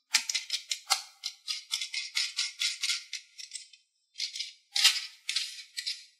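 Quick rhythmic shaker-like rattling, about five or six strokes a second, pausing briefly about four seconds in and then resuming.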